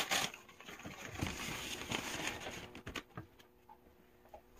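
Rustling and light clicks and knocks of items being handled, dying away after about three seconds.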